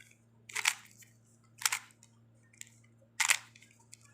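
Plastic Rubik's cube faces being turned by hand: three short, sharp clacks about a second apart.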